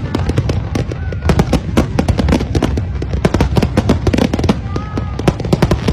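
Fireworks display going off: a dense, continuous run of bangs and crackles, several a second, over a low rumble.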